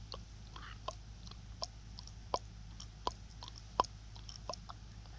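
Soft wet mouth clicks from a tongue pushed up against the palate and dropped again, about once every three-quarters of a second. This is the piston-like tongue movement of the Frenzel ear-equalising manoeuvre.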